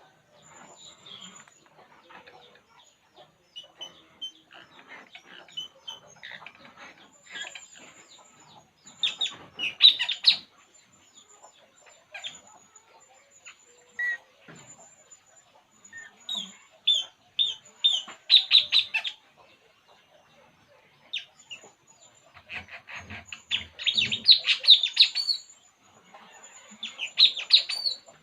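A burung puling bird calling in loud bursts of rapid high chirps, clustered every few seconds, with quieter scratchy chatter between the bursts.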